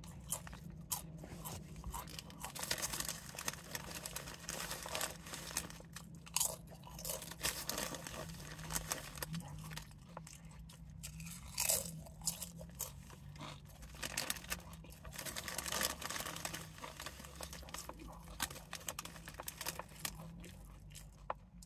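Cool Ranch Doritos tortilla chips being bitten and chewed close up, with many short, irregular crunches, over a faint steady low hum.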